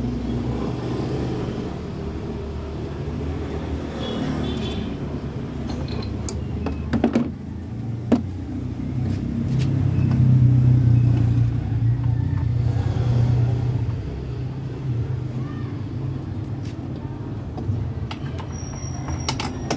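A motor vehicle engine running steadily with a low hum, growing louder about ten seconds in and easing off again a few seconds later. A couple of sharp metal clinks come about seven and eight seconds in, from hand tools on the scooter's engine as the spark plug is fitted.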